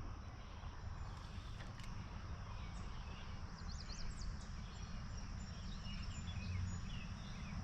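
Faint, scattered bird chirps with quick up-and-down notes over a steady low background rumble.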